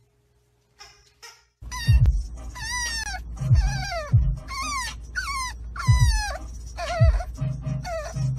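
French bulldog puppy whining, starting about a second and a half in: a string of high crying calls, each falling in pitch, over the low rumble inside a moving car.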